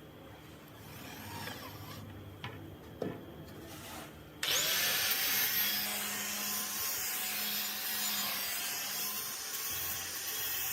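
Angle grinder grinding the bevel of a steel blade: a couple of light knocks, then about four seconds in the grinder starts with a brief rising whine and runs on in a steady grinding hiss.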